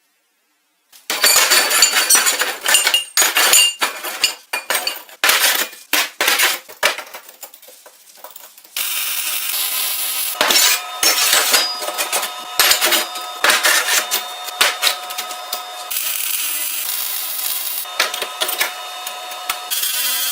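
Metal parts clinking and scraping in quick, irregular strikes. From about nine seconds a steady hiss runs under continuing clinks.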